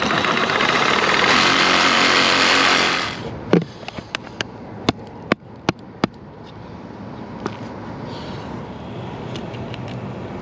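A power tool runs loudly for about three seconds and then stops, followed by a series of sharp knocks and clicks.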